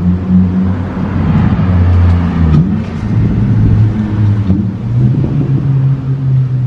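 Honda Integra DC5's four-cylinder engine running with an Injen cold air intake fitted. The engine note wavers and dips briefly about two and a half seconds in, then holds steady.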